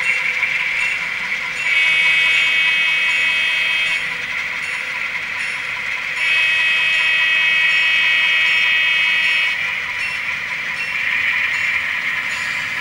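Sound system of an N scale model diesel locomotive playing its diesel engine running, with two long horn blasts, the second longer than the first, as the train moves off along the layout.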